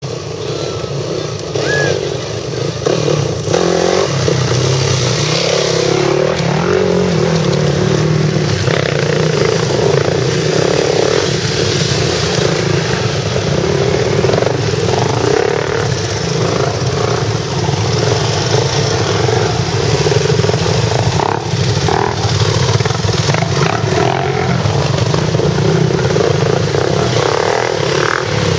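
Several dirt bike engines running steadily and loudly as a line of off-road motorcycles rides along a trail.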